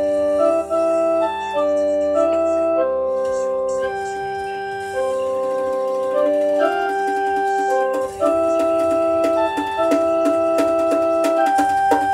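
Organ-like keyboard playing held chords that change every second or so, each note steady and not fading. From about eight seconds in, short regular taps sound along with the chords.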